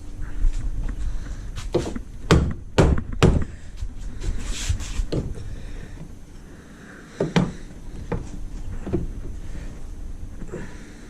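Metal knocks and thunks as a mud-motor transom mount bracket is worked down over an aluminum boat's transom. The knocks come in a quick cluster of four a couple of seconds in, then as scattered single knocks.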